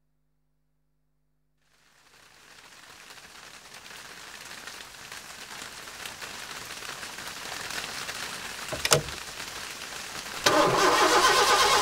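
A hiss fades in from silence and slowly grows louder, with a sharp click about nine seconds in; then, near the end, an engine starts and runs loud and steady with a rapid, even pulse.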